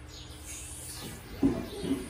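Small birds chirping repeatedly, short falling calls. About a second and a half in comes a sharp knock, and a softer second knock half a second later, both louder than the birds.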